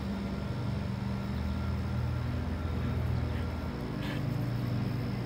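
Steady low mechanical hum of a machine running, with its low pitches shifting slightly partway through and a faint brief rustle about four seconds in.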